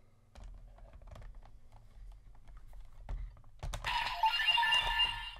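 Light plastic clicks and taps as a Vice Stamp is worked into a DX Revice Driver toy belt, then, about three and a half seconds in, the belt starts playing loud electronic sound effects and music through its small speaker: the toy's activation sound for the Spider Vice Stamp.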